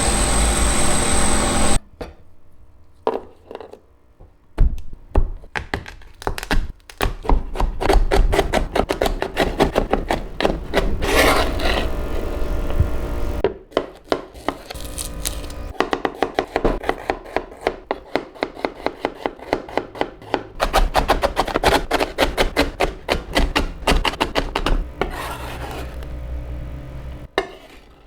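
A knife chopping food on a wooden cutting board, in quick runs of several strokes a second with short pauses, starting about two seconds in after a louder sound cuts off.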